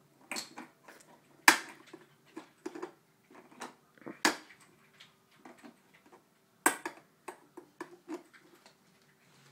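A toddler pounding with a toy hammer: a run of irregular knocks and taps, three sharper, louder hits about one and a half, four and a quarter, and just under seven seconds in.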